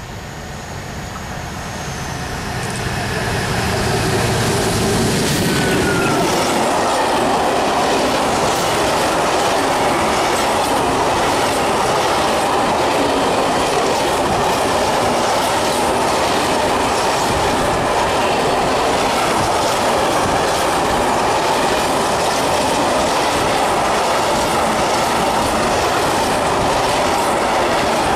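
A diesel-hauled freight train approaches and passes close by, growing louder over the first few seconds. A long rake of open freight wagons then rolls past in a steady rumble, with wheels clattering over the rail joints.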